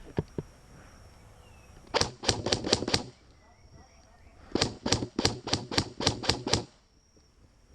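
Airsoft gun firing: two strings of rapid, sharp shots about five a second, first about six shots, then after a short pause about ten more.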